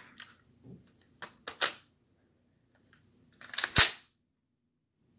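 Hard plastic clicks and clacks from a Lego brick rifle being handled: a few sharp clicks in the first two seconds, then a louder burst of clatter ending in a thump about three and a half seconds in.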